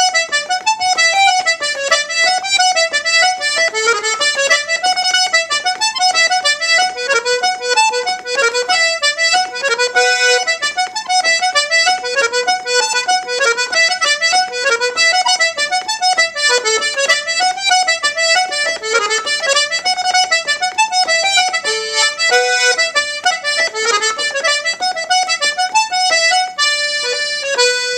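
Bertrand Gaillard two-row diatonic button accordion playing an Irish traditional reel: a fast, even stream of melody notes over the reeds' bright, buzzy tone. Near the end the tune stops on a long held closing chord.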